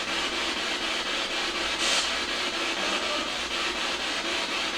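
Spirit box sweeping through radio stations: steady radio static with faint, broken snatches of sound, and a short burst of louder hiss about two seconds in.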